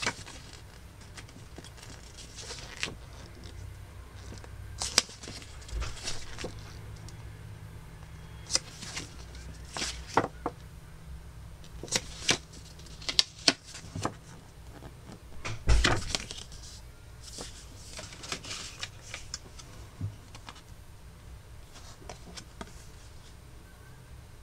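Hands handling a CD single and its packaging: scattered clicks, taps and short rustles at irregular intervals, heaviest about 5, 12 to 13 and 16 seconds in, over a low steady hum.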